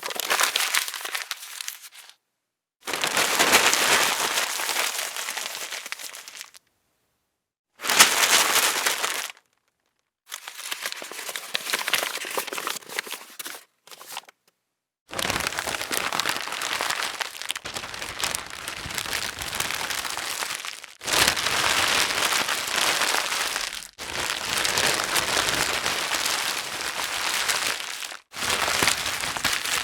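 Paper being crumpled and crinkled in a series of separate takes, each a dense crackling rustle. The takes are split by short silences, and the later ones run longer.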